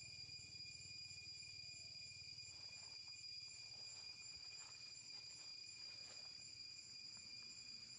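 Faint, steady high-pitched drone of insects chirring, with a few soft scattered rustles or ticks in the middle.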